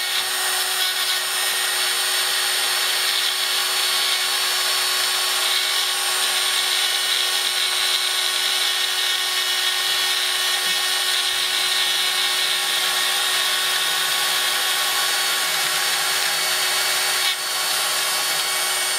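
Mains-powered rotary drill of a Proxxon pantograph engraver running at speed, its small cutter milling a nickel silver sheet: a steady whine with a high cutting hiss.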